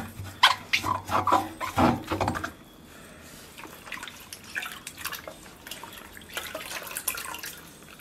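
Wet cloth wiping and scrubbing the rubber door gasket of a Samsung front-load washing machine with baking-soda water. A run of rubbing strokes comes in the first two and a half seconds, then only faint scattered wiping.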